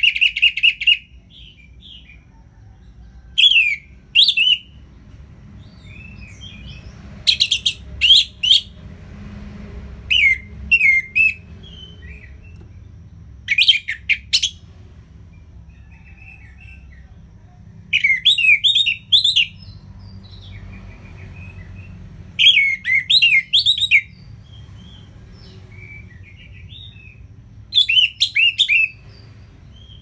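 Orange-headed thrush singing its loud full song in short, rapid warbling phrases about a second long, repeated about every three to four seconds, with soft twitters in the gaps.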